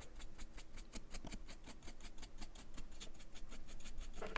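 Stiff paintbrush scrubbing back and forth over the edges of a plastic action-figure armor piece, dry brushing light paint onto raised edges: quick, faint scratchy strokes, several a second.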